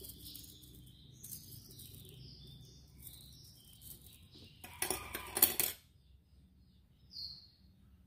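Small metal bird leg rings clinking and jingling together on a wire ring holder as they are handled, in a burst of rapid clinks about five seconds in. Small birds chirp faintly in the background.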